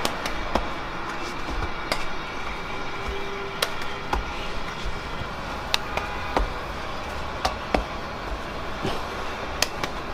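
Steady background noise with scattered light clicks and taps as hands work inside a clay tandoor oven.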